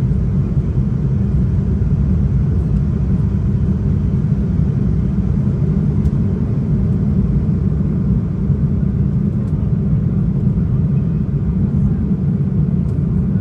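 Steady low rumble inside the cabin of an Embraer E175 jet, from its two GE CF34-8E turbofan engines and the rush of air, at an even level throughout.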